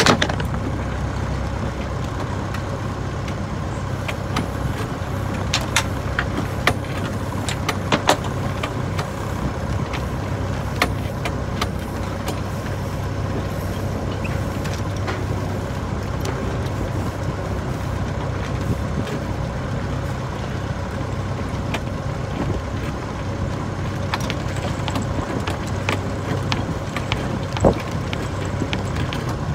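A sailing ketch's auxiliary engine running steadily, with a low hum and a faint steady whine, while the boat motors along the channel. Scattered sharp clicks and knocks from the boat's gear sound over it, the loudest near the end.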